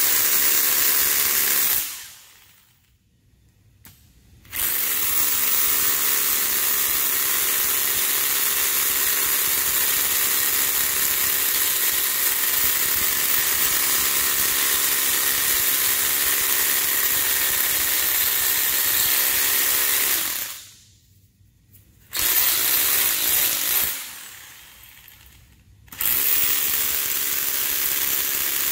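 Corded electric drill with a half-inch concrete bit boring anchor holes into a concrete floor. It runs in long stretches, stopping about two seconds in, starting again a couple of seconds later and running steadily for about sixteen seconds. After another brief stop and a short run, it starts again near the end.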